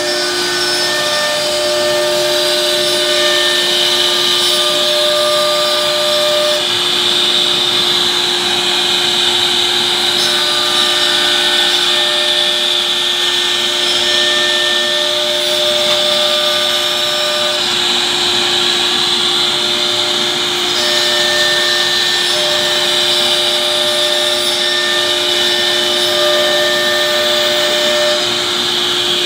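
CNC router cutting grooves into a board sheet: the spindle runs at a steady whine under a constant rushing hiss from the dust extraction. Higher whining tones start and stop every few seconds as the cutting head moves.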